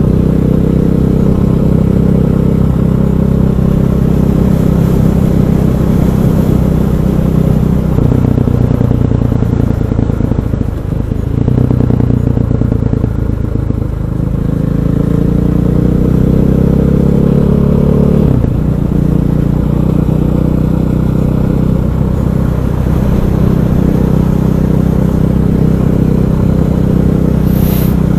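KTM 500 EXC supermoto's single-cylinder four-stroke engine running under way, its pitch dropping and climbing several times in the middle as the bike slows and picks up speed through the gears.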